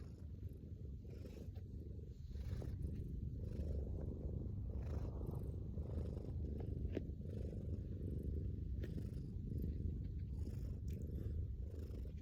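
Domestic cat purring steadily, a low continuous rumble, picking up slightly about two seconds in.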